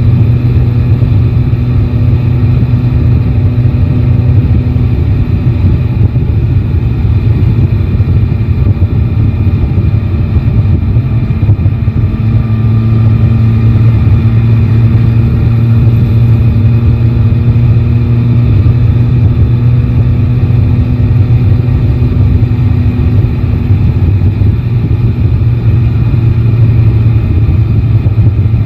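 Yamaha Tracer 9 GT motorcycle's three-cylinder engine running at a steady cruise, its note holding nearly level, with no big revving or gear changes.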